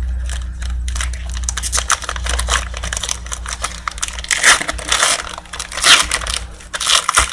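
Card packaging being torn open and crumpled by hand: dense, irregular crinkling and crackling that grows louder in the second half.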